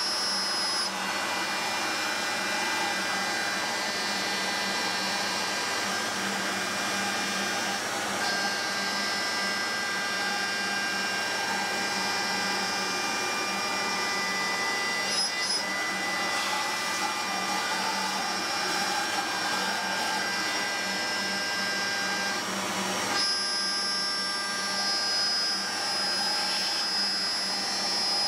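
Self-built CNC milling machine with an end mill cutting a metal plate: a steady machining noise with a hiss beneath and several steady high whining tones. The tones shift about 8 seconds in and again near the end as the cut changes.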